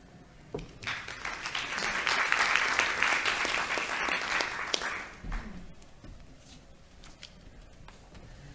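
Audience applauding for about four seconds, then dying away. A few faint knocks and clicks follow.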